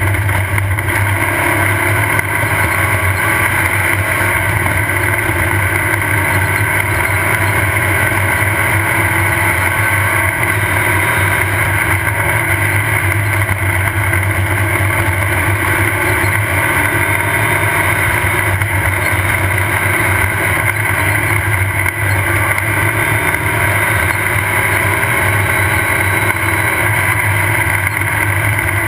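Off-road race car's engine running steadily at speed, heard from on board, a constant loud drone with no big changes in revs.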